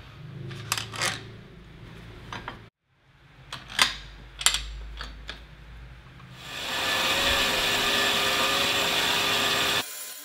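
A few sharp metallic clicks and clanks from steel parts and a saw vise being clamped, then a metal-cutting saw starts and runs steadily, cutting through a chromed steel rod, before the sound cuts off abruptly near the end.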